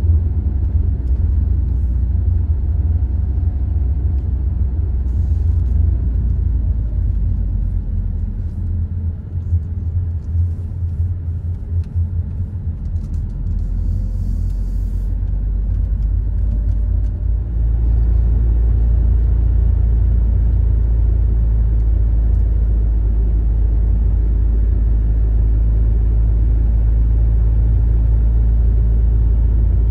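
Low, steady rumble of a car driving, heard from inside the cabin: engine and tyre noise on the road. The rumble is unsteady at first and settles into a more even drone a little over halfway through.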